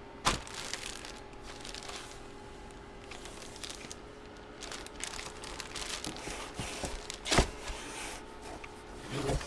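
Plastic card packaging crinkling and rustling as trading cards are handled, with two sharp clicks, one just after the start and one about seven seconds in.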